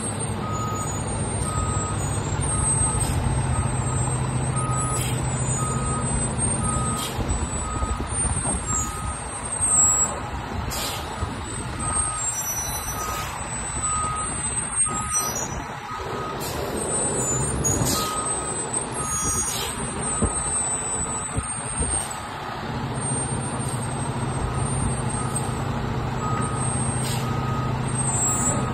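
Heavy rescue fire truck, a Spartan Gladiator/SVI, backing up: its reversing alarm beeps steadily, about once a second, over the diesel engine running, with a few short air hisses.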